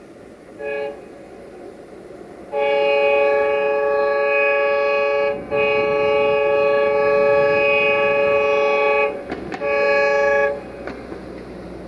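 Horn of an LDE2100 (060-DA) diesel-electric locomotive hauling a cement train, sounding several notes at once. It gives a short toot, then a long blast with a brief break in the middle, then one more shorter blast, after which only the low rumble of the train remains.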